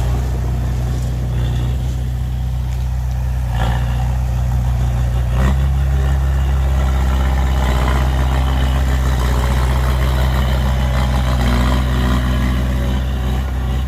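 Heavy vehicle's diesel engine running steadily. It is knocked twice, a few seconds in, after which the engine note gets louder and fuller.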